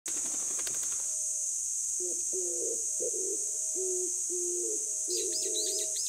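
Summer forest ambience: a steady high-pitched drone of cicadas, with low, wavering tonal notes starting about a second in and a quick run of short bird chirps near the end.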